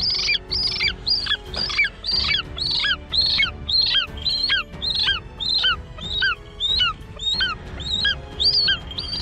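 Falconry eagle on its kill giving a long series of short, high-pitched calls, about two a second.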